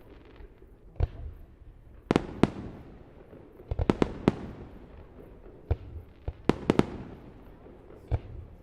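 Display fireworks bursting overhead: a string of about a dozen sharp bangs at irregular intervals, some in quick clusters, each trailing off.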